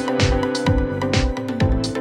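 Background music with a steady, fast drum beat over held chords.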